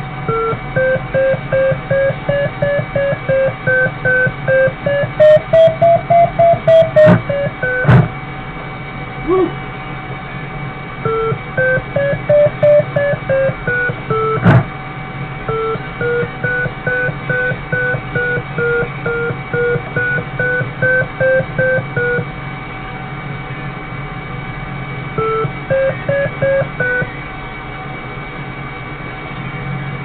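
Audio variometer beeping several times a second, its pitch stepping up and down with the glider's climb rate in lift; it falls silent for a few seconds near the end. A steady electrical hum runs underneath, with a few sharp clicks.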